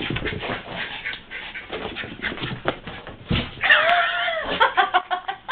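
Dogs scuffling about while chasing a laser dot, then one dog lets out a wavering whine about three and a half seconds in, followed by a quick run of short yips.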